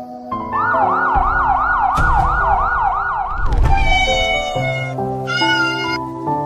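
Siren wailing up and down rapidly, about three sweeps a second, with a low rumble under it, cutting off about three and a half seconds in. A cat then meows twice over background music.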